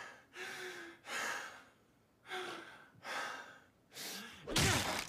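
A person gasping and breathing hard in short, separate breaths, about six of them, with the loudest gasp near the end.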